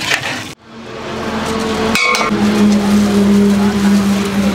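A motor vehicle's engine running nearby, a steady low drone over road noise. It comes in after a brief gap about half a second in and grows louder.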